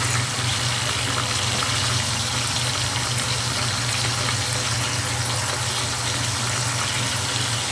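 Milkfish pieces frying in coconut oil in a wok, the oil sizzling as a steady, even hiss. A steady low hum runs underneath.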